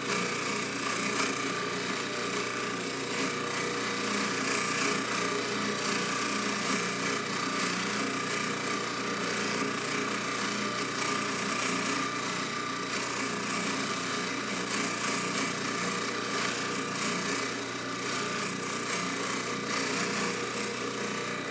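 Jeweler's bench buffing machine running steadily while a hollow chain is worked across the spinning polishing wheel, a continuous motor hum under a rubbing hiss.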